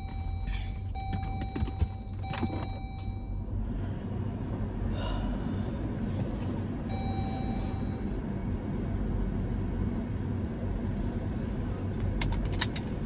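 Steady low rumble of a car cabin with the engine running. A thin steady tone sounds for the first few seconds and again briefly in the middle, and a few quick clicks come near the end.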